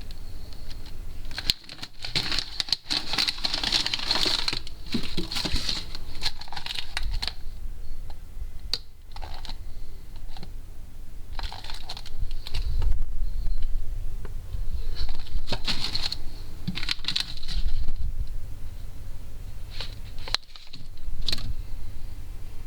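Items being handled and moved about inside a fridge: plastic packaging rustling, with small clicks and knocks.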